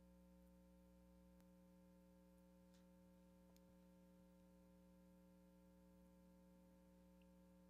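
Near silence: a faint steady hum with a few faint ticks.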